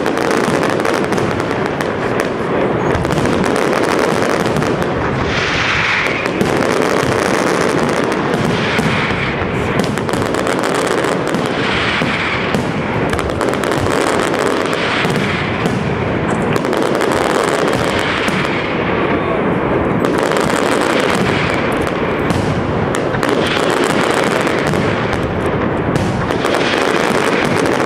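Aerial fireworks display by Pirotecnia Europla: a dense, unbroken barrage of shell bursts, bangs and crackling with no pauses.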